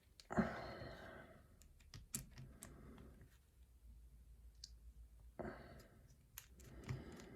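Scattered small, irregular clicks and taps from a padlock and lock-picking tools being handled, with two soft breathy exhales.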